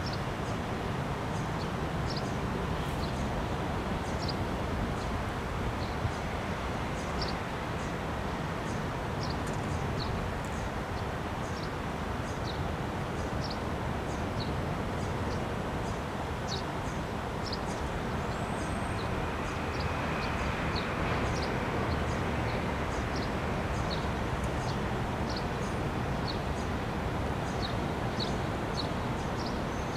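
Steady roar of city traffic, with short high bird chirps about once or twice a second.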